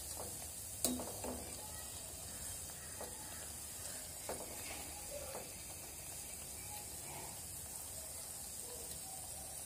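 Battered, breadcrumbed jackfruit leaves sizzling steadily in hot oil in a frying pan, being turned to fry on both sides. A few light clicks of a metal slotted spatula against the pan, the sharpest about a second in.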